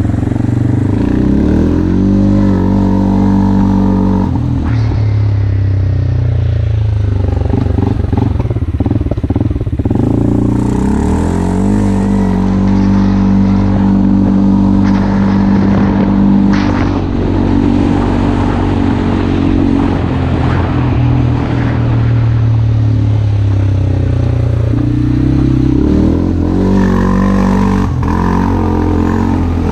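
CF Moto 450L ATV's 400 cc single-cylinder engine running under load while riding, its pitch rising and falling several times as the throttle is opened and eased off.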